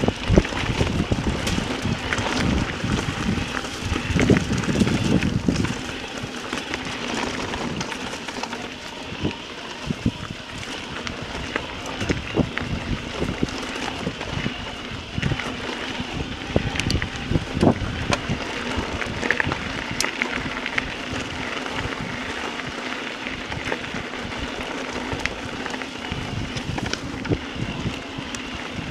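Electric mountain bike riding over a rough gravel track: tyres crunching and crackling on loose stones, with the bike rattling and a steady low hum underneath. Wind buffets the microphone heavily for the first five or six seconds, then eases as the bike slows on the climb.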